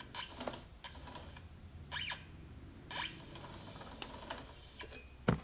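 Bicycle chain and drivetrain being handled by hand: scattered light clicks and a few short squeaks, with one sharper knock near the end.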